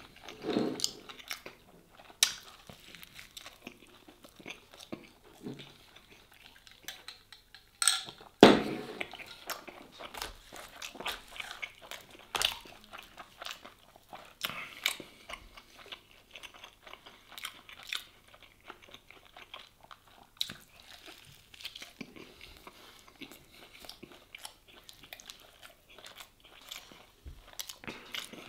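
A person biting into and chewing a toasted cheese-and-sujuk sandwich, with crunching and many small wet mouth clicks, and a few louder bites.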